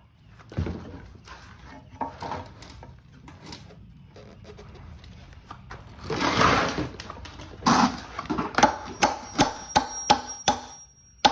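Hammer blows on the steel lower door hinge pin of a Jeep JK. Scattered knocks and a louder second-long rasp come first, then from about two-thirds of the way in a steady run of sharp, ringing metal strikes, about three a second.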